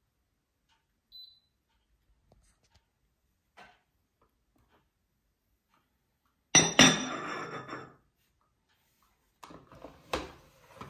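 Ceramic coffee cup set down on its saucer: a sharp clink that rings on for about a second. About three seconds later come a few plastic knocks and rattles as the drip tray of a Tchibo Cafissimo Easy capsule machine is handled.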